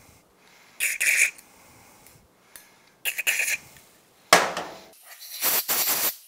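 Aerosol brake and contact cleaner sprayed in two short hissing bursts into a cylinder head's stud holes, then, from about four seconds in, louder and harsher hissing blasts that start suddenly, as from a compressed-air blow gun blowing the holes out.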